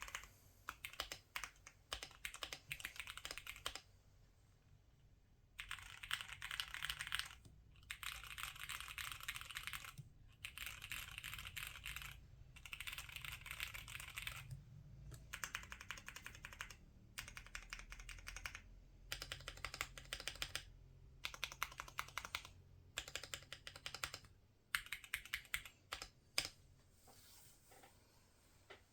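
Typing on a Cidoo V75 Pro mechanical keyboard with stock Cherry MX Purple tactile switches on a PC plate with all foams installed. The keystrokes come in quick bursts of a second or two, with short pauses between them, and end with one sharp stroke near the end.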